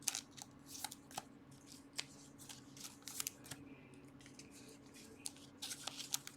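Faint light clicks and slides of trading cards being handled and sorted in the hands, scattered unevenly, over a steady low hum.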